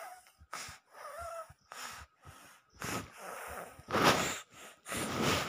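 A toddler's short, breathy huffs and snorts close to the microphone, about eight quick breaths in a row, the loudest about four seconds in.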